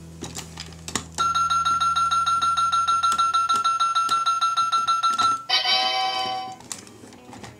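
Robocar Poli toy fuel pump playing its electronic refuelling sound effect: a steady, rapidly pulsing beep for about four seconds, then a short chiming jingle that marks the end of the fill-up. A few light plastic clicks come just before it.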